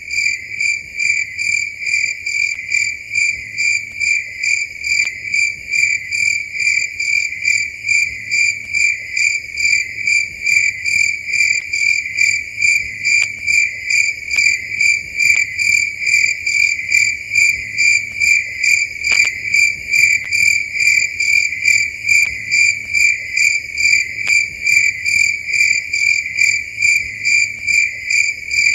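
Cricket chirping in a steady, even rhythm of about two high-pitched chirps a second, with a few faint clicks in the background.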